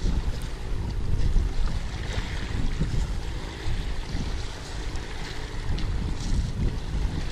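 Wind buffeting the microphone in gusts, over small waves washing on the shore.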